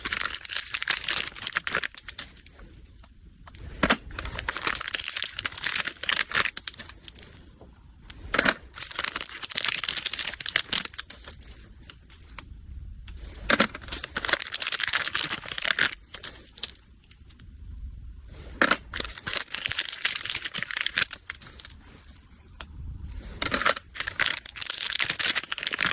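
Plastic packaging bags crinkling and rustling as they are handled and filled, in repeated spells of a few seconds with brief pauses and small clicks and taps between.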